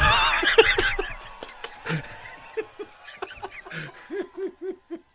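People laughing: a loud burst of high-pitched laughter, then a run of short chuckles, about three a second, that fades out.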